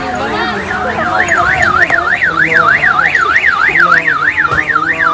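Electronic siren or alarm warbling rapidly up and down, about four sweeps a second. It starts about a second in, over voices.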